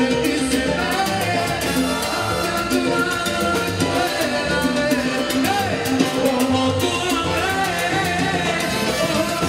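Live salsa band playing, with trombones, timbales and congas, under a male lead vocal.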